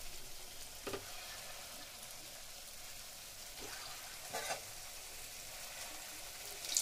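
Gulab jamun dough balls deep-frying in hot desi ghee in a metal pan: a steady, gentle sizzle, with two short knocks, about a second in and again after four seconds.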